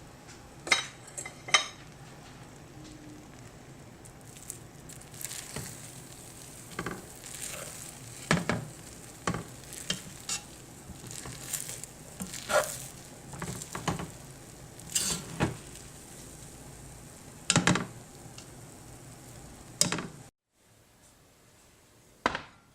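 A utensil stirring freshly cooked rice in a pot, with irregular scrapes and knocks against the pot over a steady faint hiss. The sound cuts off abruptly near the end, followed by one more knock.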